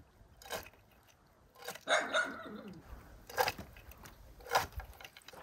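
A dog barking several times in short, separate barks.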